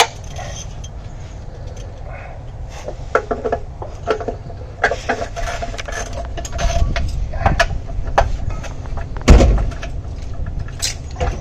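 Hand tools working on metal under a truck: scattered clinks and clanks, some ringing briefly, as bolts on the transmission are snugged up, with one heavy thump about nine seconds in.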